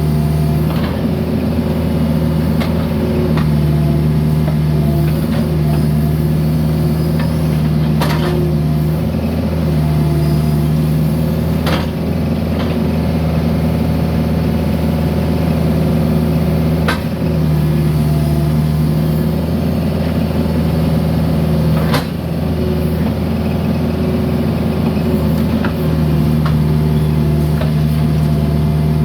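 Mini excavator's diesel engine running steadily, its note swelling and easing in stretches as it works under load. Four sharp knocks or clanks come a few seconds apart.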